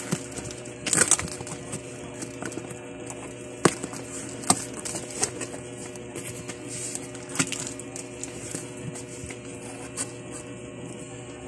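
A cardboard parcel box being cut open and unpacked: scissors snipping packing tape and cardboard flaps being pulled back and handled, with scattered sharp clicks and crackles.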